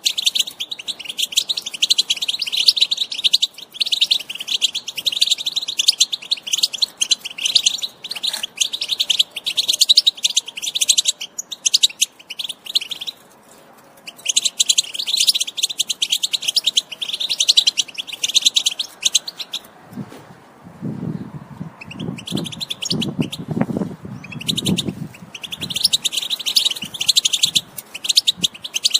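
European goldfinch song: long runs of fast, high twittering and chirps with short breaks between phrases, the kind of song played to spur kept goldfinches into singing. A low rumbling sound runs underneath for a few seconds about two-thirds of the way through.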